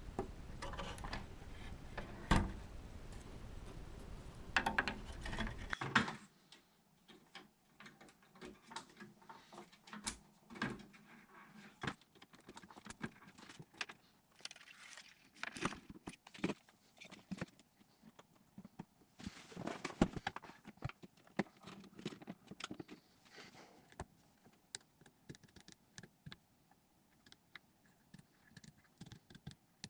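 Irregular clicks, taps and light rattles of small hard parts being handled, with a steady hiss under the first six seconds that cuts off suddenly.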